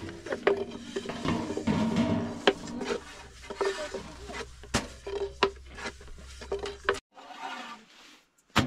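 Thin wooden rolling pin rolling and rubbing over flatbread dough on a round wooden board, with irregular light clacks of wood on wood as the dough is rolled thin.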